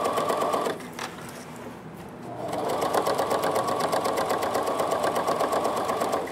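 Domestic sewing machine stitching a folded denim jeans hem with a rapid, even rhythm. It stops just under a second in, a single click follows, then it starts again, picking up speed, and runs on until it stops at the very end.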